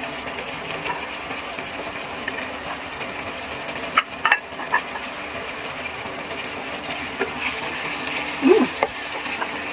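Pork afritada in tomato sauce simmering in a nonstick pan with a steady sizzle, broken by a few sharp clicks of a utensil against the pan about four seconds in. Near the end a wooden spatula stirs the stew.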